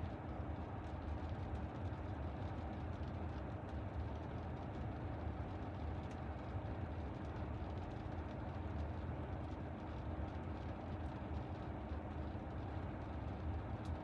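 Faint, steady low rumble of vehicle noise, with no distinct events.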